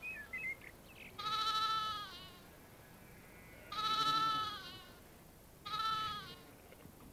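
Lambs bleating: three separate bleats, the last one shorter than the other two.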